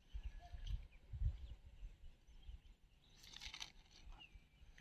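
Quiet outdoor ambience: low rumbles of wind on the microphone in the first second and a half, then brief high bird chirps a little after three seconds and again near the end.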